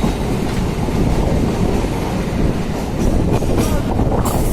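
Electric suburban local train running on the track, a steady heavy rumble of wheels and carriages, with a few brief hissing bursts near the end.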